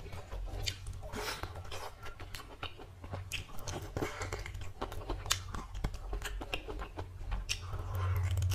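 Close-up wet eating sounds of rice and curry eaten by hand: fingers squishing the food, then chewing with irregular sharp lip smacks and clicks, over a low steady hum.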